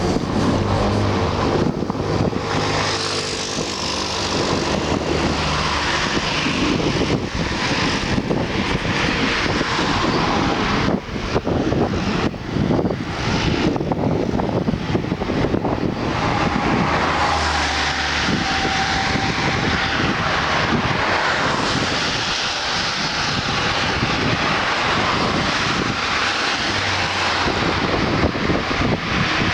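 Steady wind and road noise of a moving car, with a low engine hum underneath.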